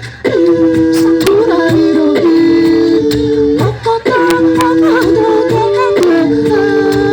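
Music: a melody of held notes that slide up and down between pitches over light percussion, pausing briefly near the start and again about four seconds in.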